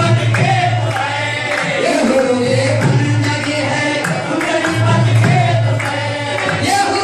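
Live qawwali: men's voices singing together to a harmonium, over a steady beat of hand-claps and percussion.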